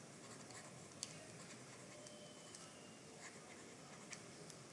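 Faint stylus strokes and light taps on a tablet while handwriting, with a few soft clicks against near silence.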